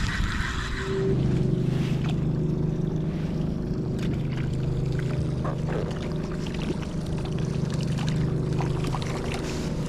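Boat engine running under way, with a steady low hum and drone. About a second in it grows louder and steadier as the throttle comes up, then holds, with wind and water noise behind it.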